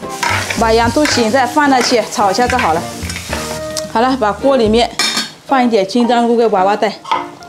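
A long-handled metal spatula is stir-frying chicken with onion and celery in a large iron wok. About six scraping strokes each give a wavering squeak against the iron, over a steady sizzle of frying.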